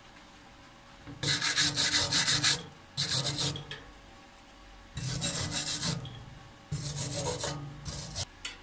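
Wire brush scrubbing the welds on a thin steel square-tube piece, in five bursts of rapid scratchy strokes.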